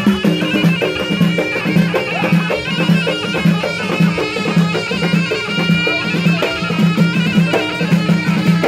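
Alaoui folk music from eastern Morocco, played live: a reedy, bagpipe-like wind instrument carries the melody over a steady drum beat.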